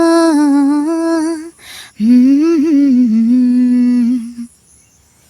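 A woman's voice singing a wordless tune with no accompaniment: two long held phrases, the second lower. It stops about four and a half seconds in.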